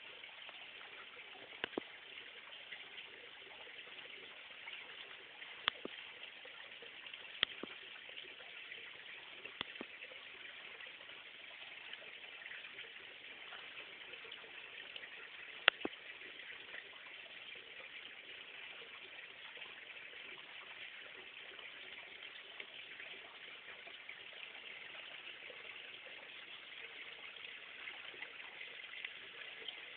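Steady hiss of running water, with a few sharp clicks now and then, the loudest about sixteen seconds in.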